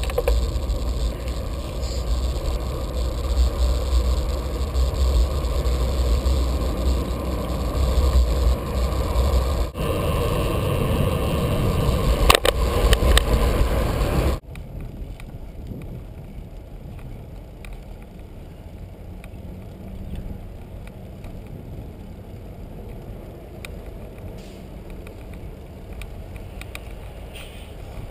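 Wind buffeting and tyre rumble picked up by a bicycle-mounted action camera while riding on pavement, with a few sharp knocks from bumps. About halfway through it drops suddenly to a much quieter, steady hiss of the ride.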